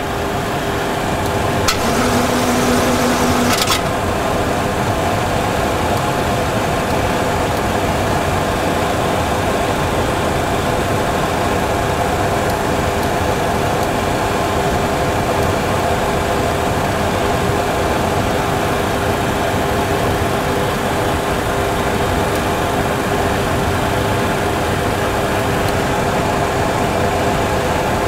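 Boeing 737 Classic flight simulator's engine and airflow sound: a steady jet rumble with a constant hum, from the one engine still running with its thrust stuck high after a simulated governor failure. About two seconds in, a short low tone with a hiss sounds for under two seconds.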